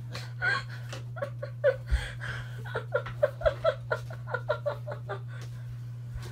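A person giggling and laughing in short bursts, several a second, over the steady low hum of a spinning ceiling fan.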